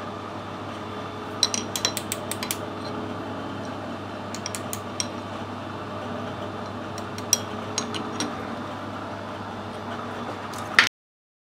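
Light metallic clinks and taps as a freshly machined metal ring is handled in a lathe's chuck, in two short clusters, over a steady workshop hum. The sound cuts off suddenly near the end.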